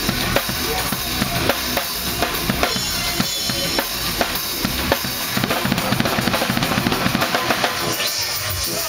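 Drum kit played during a soundcheck: bass drum, snare and cymbals, with the strokes growing faster and denser about halfway through.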